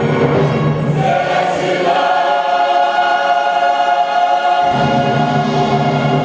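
Church choir singing with an orchestra, holding long sustained chords. The low bass drops out in the middle and comes back in near the end.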